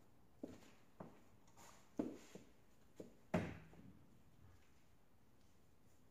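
A few soft knocks and taps, roughly one a second, the loudest about three and a half seconds in, then quiet room tone.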